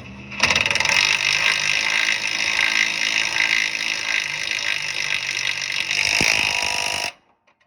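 A tool running an engine mounting bolt into a riding mower's frame: a loud, steady mechanical noise that starts abruptly and cuts off suddenly about seven seconds in. The bolt threads were dirty, so it had to be wrenched in hard.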